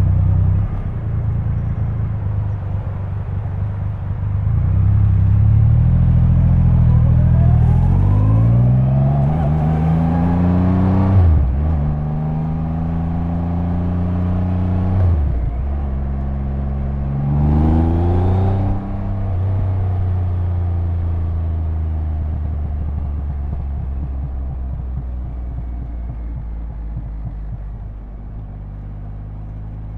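2022 Triumph Rocket 3's 2.5-litre inline-three engine accelerating through the gears. The revs climb and drop at each upshift three times, from about seven to nineteen seconds in. Then it settles into a steady, low-rev run that slowly gets quieter.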